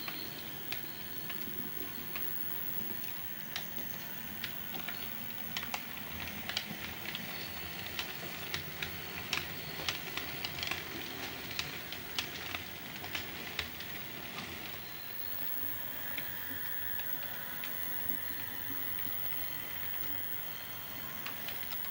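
Model G5 tank locomotive running with four suburban coaches up a gradient: a steady mechanical running sound with a run of sharp clicks from the wheels on the track, thickest about six to fourteen seconds in.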